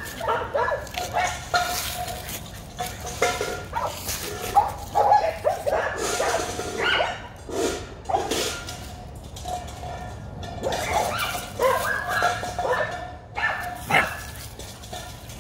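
American Pit Bull Terrier puppy barking and yipping in play, a long string of short calls with brief pauses between them.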